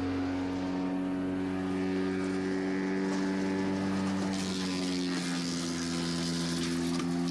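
Vermeer BC600XL wood chipper's engine running steadily, its pitch dropping slightly about five seconds in.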